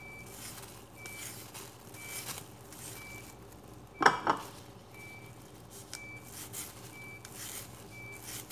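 Hand vegetable peeler scraping down carrots in short strokes, about one a second, with a sharp clatter about four seconds in. A short high beep repeats about once a second throughout, like a vehicle's reversing alarm.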